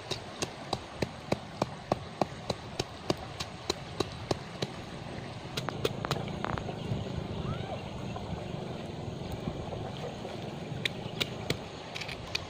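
Pestle pounding in a small mortar: sharp, evenly paced knocks about three a second, stopping for a softer, uneven stretch in the middle and starting again near the end.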